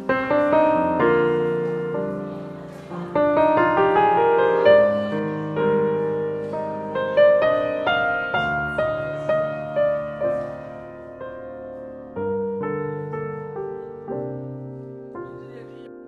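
Piano music: a gentle melody of struck notes over broken chords, each note ringing and fading.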